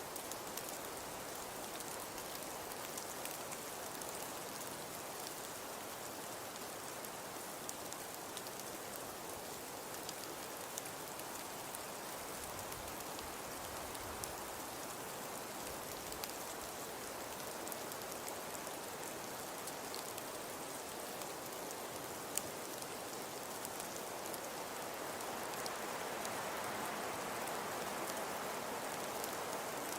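Falling precipitation pattering on a surface: an even hiss dotted with many fine ticks. It grows a little louder after about 25 seconds, with one sharper tick near 22 seconds.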